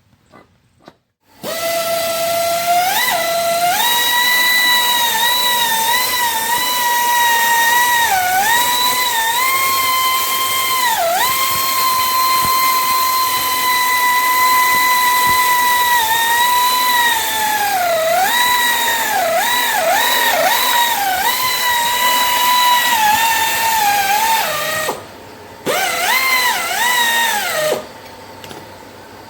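An electric power tool motor whining at a steady high pitch that dips briefly again and again. It stops, runs once more for about two seconds, and stops.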